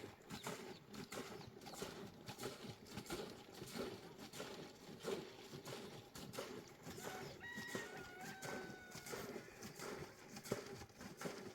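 Sheep flock moving: irregular clicking and knocking of hooves, with a brief high pitched call about two-thirds of the way through.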